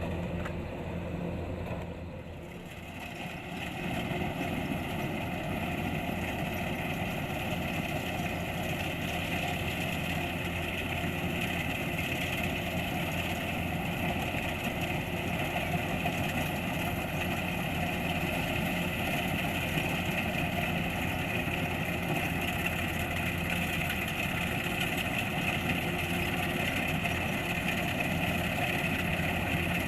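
Kubota combine harvester running steadily while harvesting rice, an even engine drone with a mechanical whir above it. The sound drops briefly about two seconds in, then comes back and holds steady.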